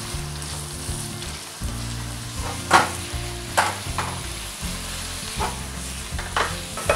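Ground pork sizzling as it browns in a nonstick wok. A spatula stirs and breaks up the meat, with several sharp scrapes and knocks against the pan over the steady sizzle.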